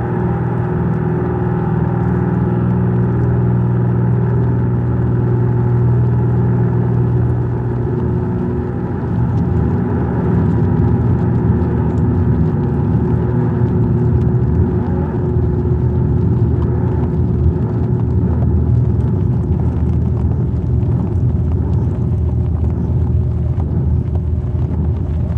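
Ambient electronic drone music: layered sustained low tones over a rumbling noise texture. The low end turns rougher and grainier about nine seconds in.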